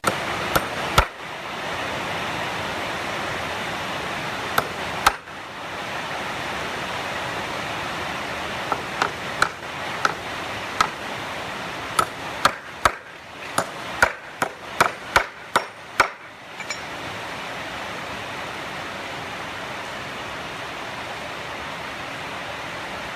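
Sharp hammer blows in short irregular runs, the longest and quickest run in the middle, over a steady background hiss. The blows stop well before the end, leaving only the hiss.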